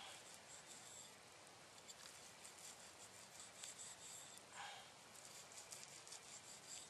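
Near silence: faint outdoor background with light scratching and rustling handling noises.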